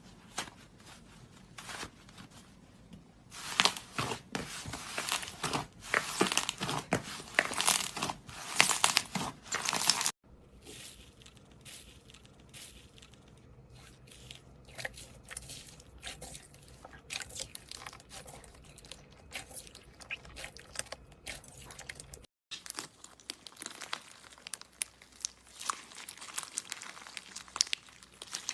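Slime being squished and pressed by hand, giving rapid crackling clicks. The crackling is densest and loudest in the first third, then quieter and sparser after an abrupt cut about ten seconds in, with another cut near 22 seconds.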